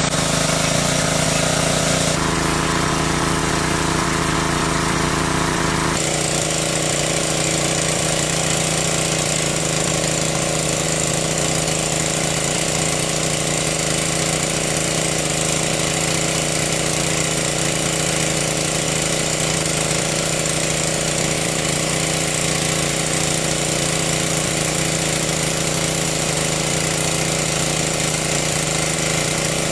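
A small engine running steadily, its tone changing slightly about two seconds in and again about six seconds in.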